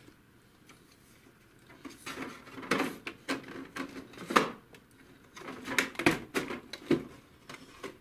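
Plastic clicks, knocks and short scrapes from the HP DeskJet 2130's scanner unit housing as its snap latches are released and the unit is worked loose from the printer body. After about two seconds of quiet comes an uneven string of sharp clicks, the loudest about four and a half seconds in.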